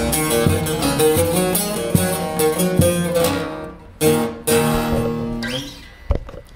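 Long-neck bağlama (saz) with a carved mulberry bowl: a fast run of plucked notes breaks off about three seconds in, then two strummed chords half a second apart ring out and fade. A short low knock near the end.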